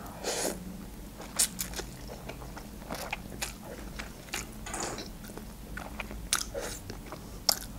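Close mouth sounds of a person eating instant noodles: noodles slurped off a fork and chewed, with scattered short wet clicks and smacks.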